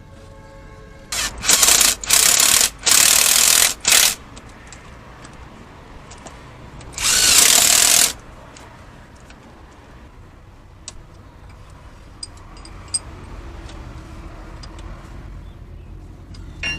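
A power tool runs in short bursts: four close together in the first few seconds, then one longer burst about seven seconds in. It is fastening the studs of a three-wheeler gearbox being reassembled.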